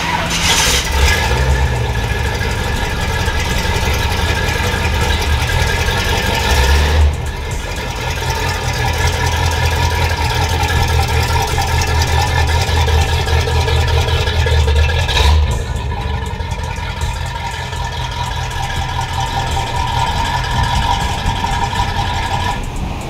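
Car engine running at low revs as the car is pulled forward: a steady low rumble with a steady whine above it. The sound shifts suddenly twice, about 7 and 15 seconds in.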